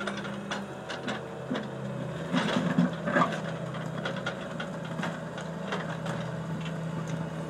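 Mini excavator's diesel engine running under hydraulic load, with scattered clanks and knocks from the tracks, bucket and stones as the machine works its way down a steep earth bank. The engine gets louder for about a second, a little over two seconds in.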